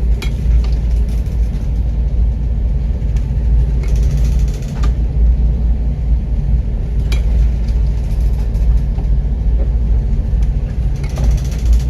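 A cargo ship working in a rough sea: a loud, steady low rumble, with a few sharp knocks and clatters now and then.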